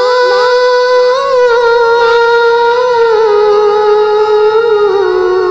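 A high female voice humming one long wordless note that wavers slightly and sinks a little lower near the end.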